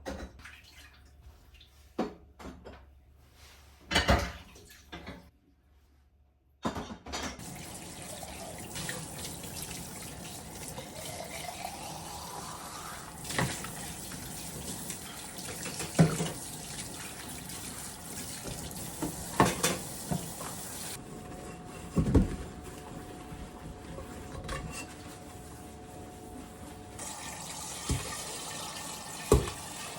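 Kitchen tap running into the sink, turned on about seven seconds in, with dishes knocking and clinking at intervals. Before the water starts there are a few separate knocks. Once it is running, the pitch climbs for a few seconds as a vessel fills.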